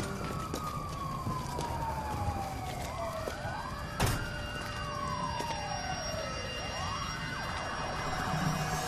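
Two or more sirens wailing in slow, overlapping sweeps that fall and rise in pitch over several seconds, with a single sharp bang about four seconds in.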